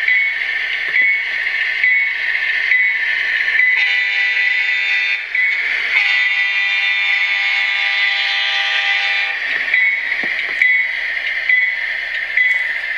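Sound decoder in an HO scale GEVO locomotive model playing a diesel locomotive horn through the model's small speaker: a short blast about four seconds in, then a longer blast of about three seconds. Under it the decoder's engine sound runs steadily and the bell dings about once a second.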